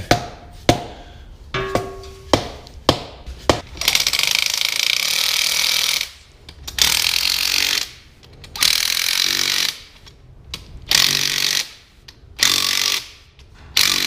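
About six hammer knocks on a tight-fitting geared hub going onto a tractor diesel's new crankshaft, then a power wrench hammering in five short bursts as the bolts draw the part down onto the crankshaft.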